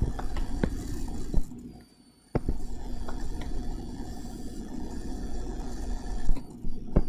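Stylus rubbing and tapping on a touchscreen while a circle is drawn by hand: a low scraping noise with a few sharp taps. It stops briefly about two seconds in, then runs on.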